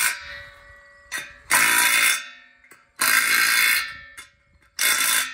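Cordless impact driver with a socket tightening expansion-bolt nuts on a steel post base plate, hammering in four short bursts with pauses between.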